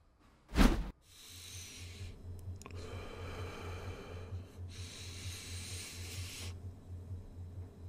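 A sudden loud thump, then a man breathing heavily in long, ragged breaths, as in a panic attack, over a low, rapidly pulsing throb.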